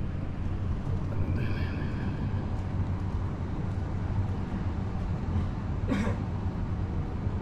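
Steady low outdoor rumble, with a faint brief higher sound about a second and a half in and a short sharp sound about six seconds in.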